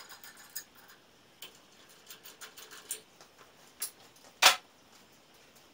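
Scattered light clicks and taps of tools and metal machine parts being handled while the mortiser guard is taken off a Robland X-31 combination machine, with one sharper knock about three-quarters of the way through.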